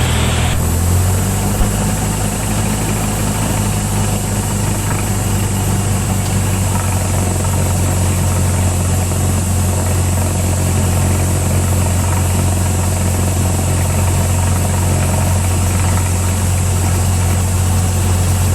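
Cessna 172's four-cylinder Lycoming engine and propeller running steadily at low power, heard from inside the cabin as a steady low drone; the pitch steps up slightly about a second in.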